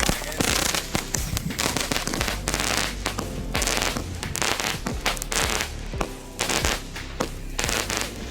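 A 25-shot consumer firework cake firing: a rapid, irregular string of shots launching and bursting, with crackle between them.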